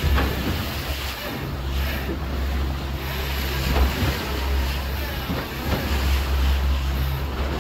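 Suzuki 175 four-stroke outboard motor running steadily as the boat is underway, with a low hum under the rush of the churning wake and wind buffeting the microphone.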